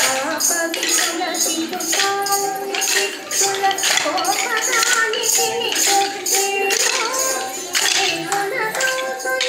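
Indian devotional dance music with a melody and jingling, tambourine-like percussion keeping a steady beat.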